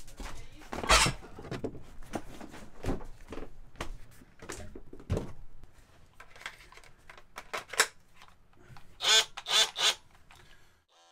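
Irregular clicks, knocks and rattles of hand tools being handled and a cordless DeWalt power tool being set up, with three short squeaks about nine seconds in.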